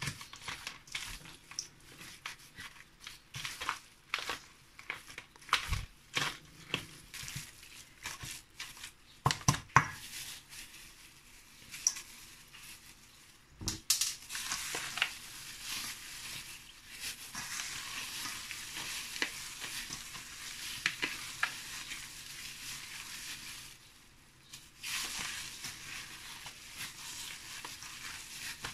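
A gloved hand kneading raw ground meat mixture in a stainless steel bowl: wet squishing with the crinkle of the thin plastic glove. The squishes come as scattered sharp clicks at first, then run on more continuously from about halfway, with a short pause near the end.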